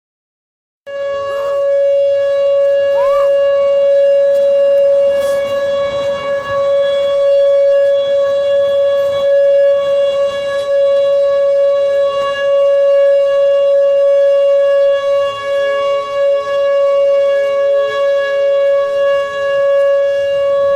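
Outdoor tornado warning siren sounding a test in one loud, steady, unwavering tone, starting abruptly about a second in.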